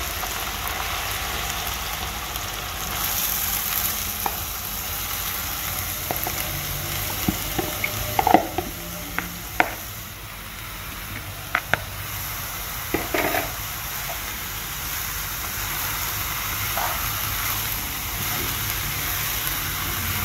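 Chopped onions sizzling in hot oil in a frying pan, a steady frying hiss as they are tipped in and stirred. A few sharp knocks and clatters of utensils against the pan come midway.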